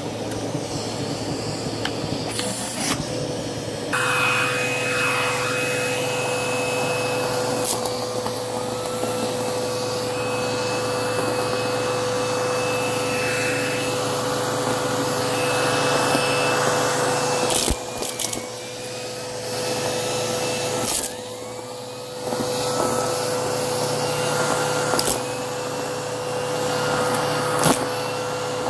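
Bissell CleanView vacuum running over carpet strewn with sequins, beads, buttons and shell fragments, with a steady motor hum and a high whine. Light crunching and rattling comes as the debris is sucked up, with scattered sharp clicks of pieces hitting inside. The sound drops briefly twice in the second half.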